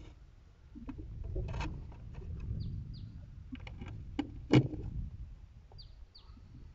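Small clicks and taps of little silver screws being handled and set by hand into pilot holes in wooden roof slats, the loudest tap about four and a half seconds in. A bird chirps faintly in two pairs of short falling notes.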